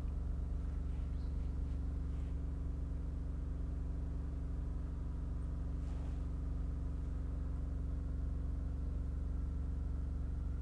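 A steady low machine hum.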